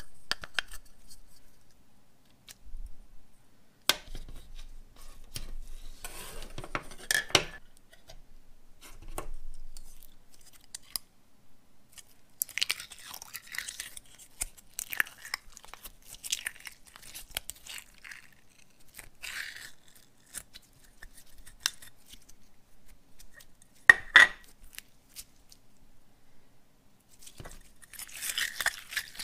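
Hands handling a sensory toy, making scattered scratchy, crinkly handling noises in short bursts. The loudest sound is a sharp double click about 24 seconds in.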